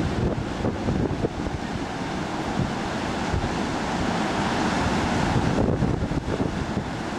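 Gulf of Mexico storm surf rushing and breaking, whipped up by a distant hurricane, with strong wind buffeting the microphone in a gusty low rumble.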